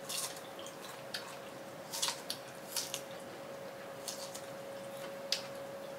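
Wet mouth smacks and squishes from eating soft, ripe durian flesh: about ten short, scattered clicks over a faint steady hum.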